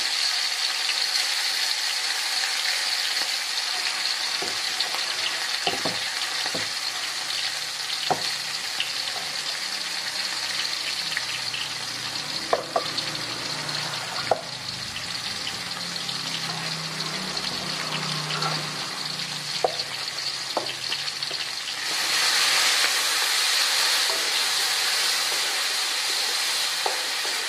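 Ground spice paste sautéing in hot oil in an aluminium wok: a steady frying sizzle with scattered clicks and pops. Near the end the sizzle gets louder as a wooden spatula stirs the paste around the wok.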